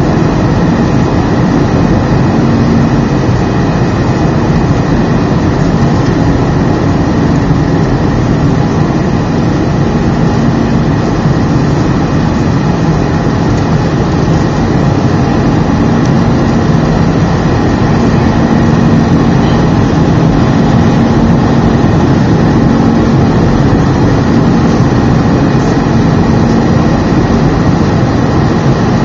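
Steady engine and airflow noise inside the cabin of an Airbus A319 in its climb after takeoff, with a steady low hum running through it.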